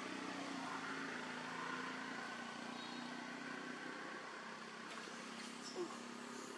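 A motor vehicle's engine humming steadily in the background, sinking slightly in pitch and slowly fading. A brief faint tick comes near the end.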